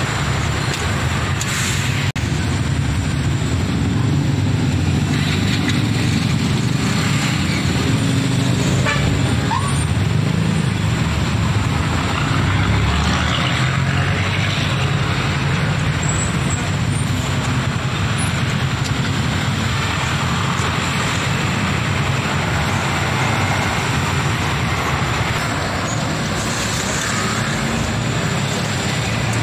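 Mixed road traffic of motorcycles, cars and diesel trucks running and passing in a steady engine rumble, with a Mitsubishi Fuso cargo truck coming by close near the end.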